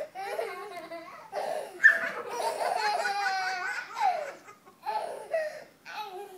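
Young child laughing in several bursts, the longest a run of rapid, rhythmic belly laughs from about two to four seconds in.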